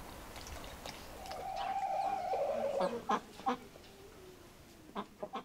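A domestic fowl calling: one drawn-out call about a second and a half long that drops in pitch at its end, followed by a few sharp knocks.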